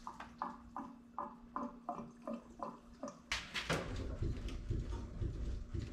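Gasoline glugging as it pours from a plastic gas can into a car's fuel filler, about three glugs a second. About three seconds in it gives way to rustling handling noise and a few knocks.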